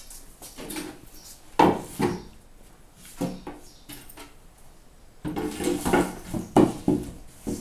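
White flat-pack kitchen cabinet panels being handled and set down, with a few separate knocks and then a longer clatter of knocking and scraping in the second half.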